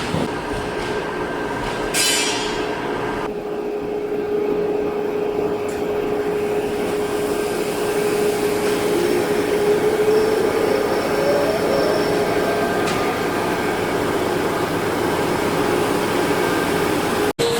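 Steady mechanical rumble and hum of heavy forging machinery, with a held tone that rises partway through and a single sharp metal impact about two seconds in.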